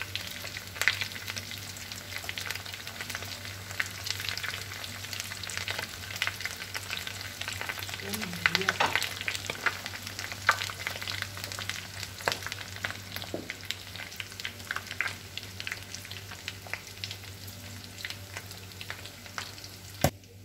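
Cauliflower and tuna balls shallow-frying in hot oil in a stainless steel pan: a steady sizzle with many small pops and crackles. One sharp click comes near the end.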